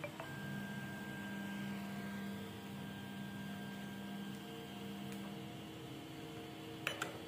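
Z-axis stepper motor of a small DIY 3D printer whining steadily as it drives the axis upward, stopping about five seconds in. A few light clicks near the end.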